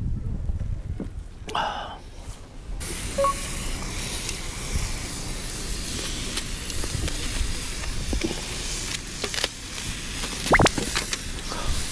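Meat-wrapped vegetable rolls sizzling steadily in a skillet over a charcoal grill, the sizzle coming in about three seconds in over a low wind rumble on the microphone. A few sharp clicks and a short squeak come near the end.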